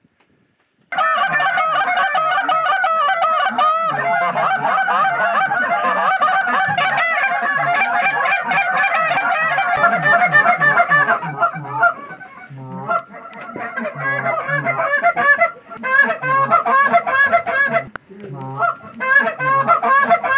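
Near silence for about a second, then Canada geese honking loudly, many short calls overlapping continuously; after about 12 seconds the honking comes in bouts with brief lulls.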